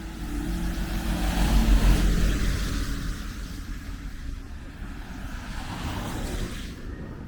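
A road vehicle driving past: a low engine rumble and tyre hiss that swells to its loudest about two seconds in and then fades, with a smaller swell again near the end.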